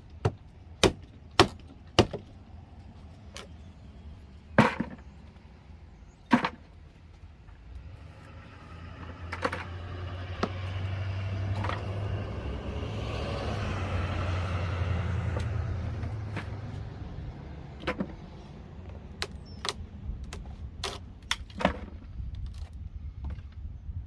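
Scattered sharp knocks and bangs from work on the wooden wall, several in the first few seconds and a quicker cluster later on. In the middle a road vehicle passes, its noise and low hum rising and fading over about eight seconds.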